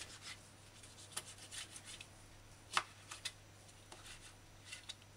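Kitchen knife cutting tomato into cubes on a cutting board: faint, irregular taps of the blade meeting the board, the clearest a little under three seconds in.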